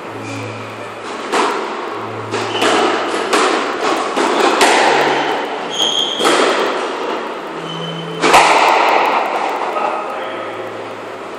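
Squash rally: the rubber ball struck by racquets and smacking off the court walls, a string of sharp thwacks over several seconds, the loudest about eight seconds in, with short high squeaks of shoes on the wooden floor.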